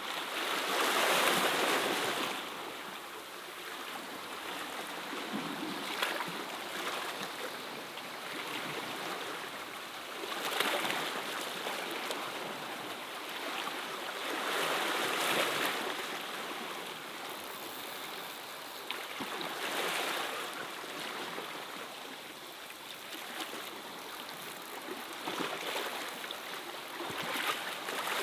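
Sea waves washing against rocks, a steady rush that swells louder every four or five seconds as each wave comes in.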